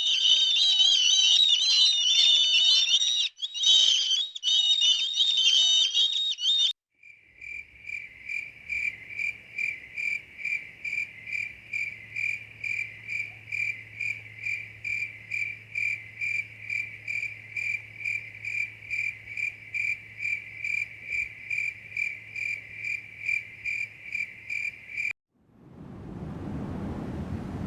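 A bird singing for the first several seconds, then an insect chirping in a steady, even rhythm about twice a second, one pitch throughout. Near the end this gives way to wind noise.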